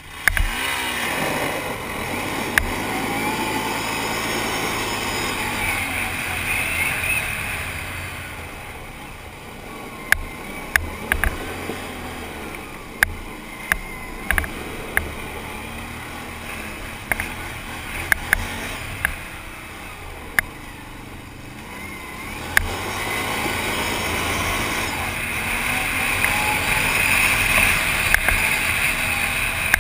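ATV engine running under throttle, its revs rising and falling as the quad accelerates and slows on a dirt track, heard from the rider's seat. In a quieter stretch through the middle, scattered sharp knocks and clicks stand out over the engine.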